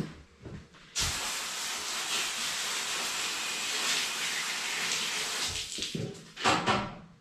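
A steady hiss of rushing air or spray that starts suddenly about a second in and stops after about five seconds, followed by a short loud burst of handling noise.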